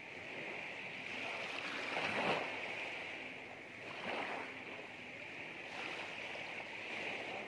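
Small sea waves lapping and washing on the shore over a steady hiss, with louder washes about two and four seconds in.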